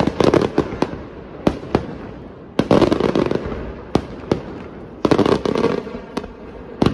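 Aerial firework shells bursting with sharp bangs, each wave followed by a stretch of dense crackling from glittering stars. The waves come about every two and a half seconds, three times.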